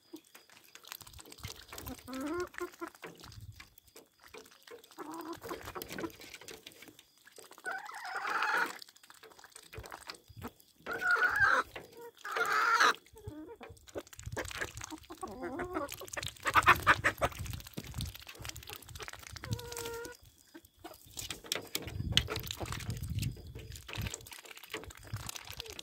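Domestic chickens clucking and calling around a water pan, a string of separate calls with the loudest about 8 seconds and 11 to 13 seconds in.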